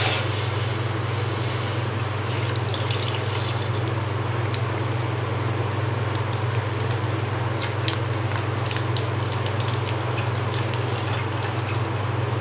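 Milk pouring from a plastic packet into a steel saucepan in a steady stream, with a few small clicks later on, over a constant low hum.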